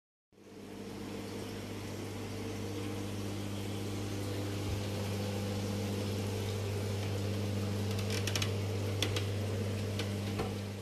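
Aquarium pump running with a steady electrical hum over a hiss of moving water, with a few light clicks about eight to nine seconds in.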